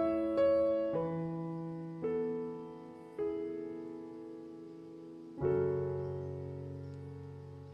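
Background piano music: slow, soft notes and chords that each ring and fade away, with a fuller chord about five seconds in.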